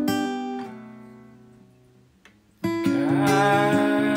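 Acoustic guitar music: a strummed chord rings out and fades almost away, then strumming comes back in sharply about two and a half seconds in.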